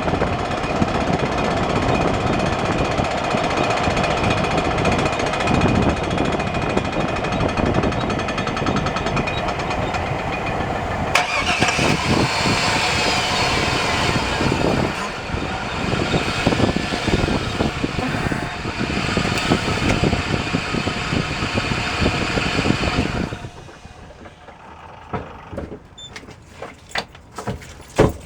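2001 Chevy Silverado on the move: road and wind noise with the constant front-end drivetrain noise, later traced to a failing front drive shaft between the transfer case and the front differential. From about halfway, pitched tones glide up and down over the noise. Near the end the sound cuts off abruptly, leaving a few faint clicks.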